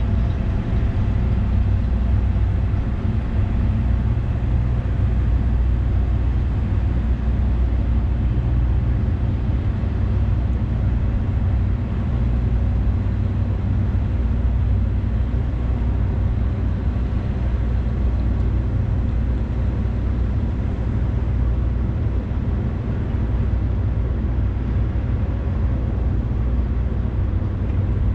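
Great Lakes freighter's diesel engines running steadily: an even, low rumble with a deep hum.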